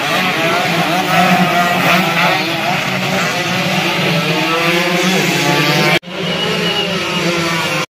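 Several two-stroke road-race motorcycles running hard together, their engines overlapping in many high, rising and falling whines as they rev through the gears. The sound breaks off sharply for an instant about six seconds in, then resumes.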